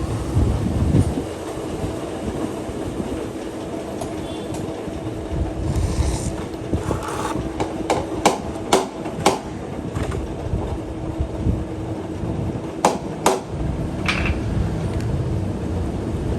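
Metal lathe running with a steady hum and low rumble, with several sharp metallic clicks about halfway through and again a few seconds later.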